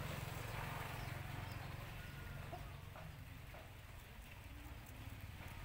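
Rabbit chewing on greens, faint crunching clicks over a steady low rumble.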